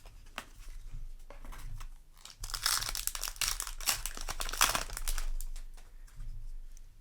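Foil wrapper of a Yu-Gi-Oh! booster pack being torn open and crinkled by hand. There are light rustles and taps first, then about three seconds of dense crackling from the middle on.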